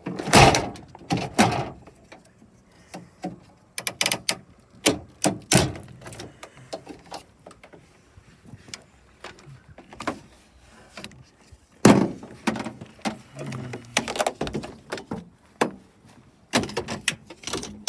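Repeated clunks and knocks from the body and interior of a crash-damaged, partly stripped car being handled, such as a door and loose trim panels. The loudest come at the start, about five and a half seconds in, and about twelve seconds in.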